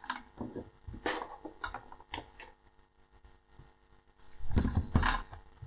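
Small hand tools and a tiny quadcopter being handled on a silicone work mat: a string of light clicks and knocks, then a louder, longer dull handling noise about four and a half seconds in.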